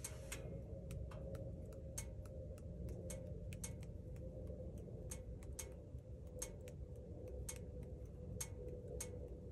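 Wood fire in a wood-burning tent stove crackling: irregular sharp ticks and pops, a couple a second, over a low steady rumble.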